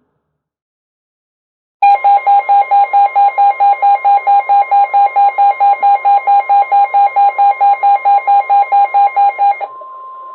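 NOAA Weather Radio alert: a weather radio's rapid pulsing alarm beep, about four to five beeps a second, sounding over the steady 1050 Hz warning alarm tone that signals an incoming warning. It starts about two seconds in; near the end the beeping stops and the steady tone carries on alone, quieter.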